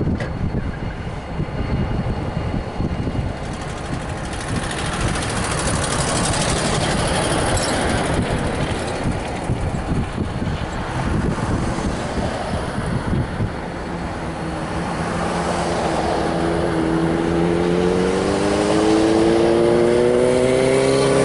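Wind buffeting the microphone over a rumble of vehicle noise. Then, for the last several seconds, an engine revs up, its pitch rising steadily and its sound growing louder.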